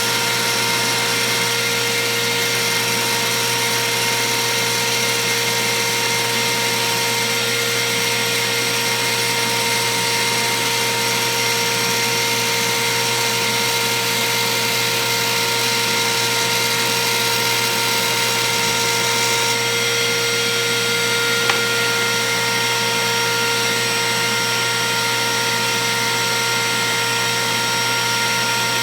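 Router running steadily at speed with a 1/8-inch single O-flute down-spiral bit in a router table, a constant whine over a dense hiss. One short tick about two-thirds of the way through.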